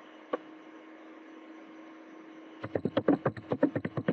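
Computer keyboard typing: one keystroke shortly after the start, then a quick run of keystrokes from about two and a half seconds in, over a steady low electrical hum.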